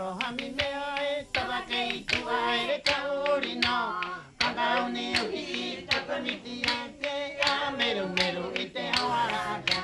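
A group of voices singing a song together, accompanied by frequent sharp hand claps keeping the beat.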